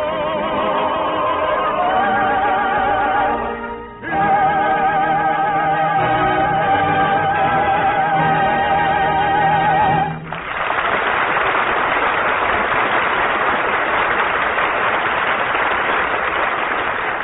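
Operatic singing with orchestra closing a song: the voice sings the last phrase with wide vibrato, breaks off briefly, then holds a long final note until about ten seconds in. Then studio-audience applause takes over, a dense even clatter.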